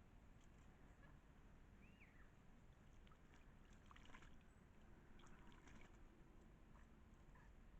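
Near silence: faint outdoor ambience with scattered soft clicks and one short high chirp about two seconds in.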